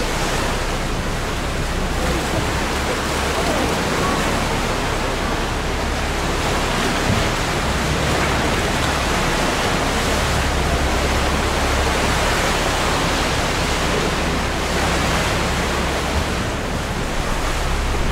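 Steady rush of sea water and waves around a small tour boat, with a low hum of the boat's engine underneath.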